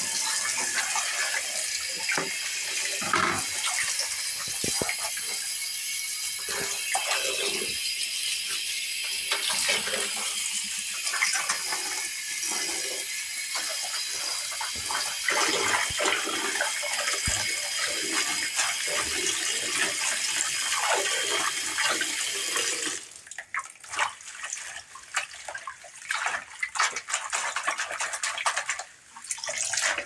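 Kitchen tap water pouring into a glass bowl as gloved hands swish and rinse stinging nettle leaves in it, with irregular splashing. About 23 s in, the steady rush of the stream stops, leaving only the splashing and sloshing of the leaves being worked in the water.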